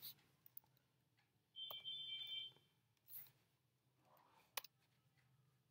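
Near silence with a few faint clicks, typical of computer keyboard typing and mouse clicks. About two seconds in, a faint high electronic beep lasts about a second.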